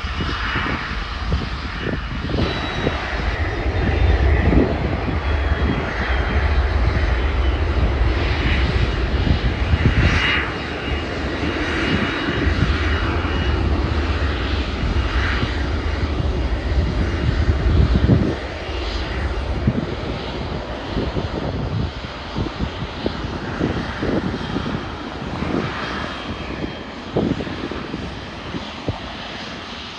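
The turbofan engines of a Cessna 560XL Citation XLS business jet running as it rolls along the runway: a steady low rumble with a faint high whine. It grows a little quieter after about 18 seconds and keeps fading.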